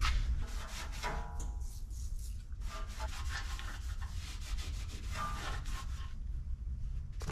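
Rag or pad rubbing and wiping over the truck's front-end metal by hand, cleaning it down to take a quick coat of paint. Irregular scratchy strokes over a steady low hum.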